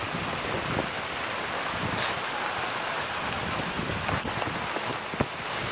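Hail and snow pellets falling onto asphalt: a steady hiss dotted with many small ticks, with one sharper tick about five seconds in.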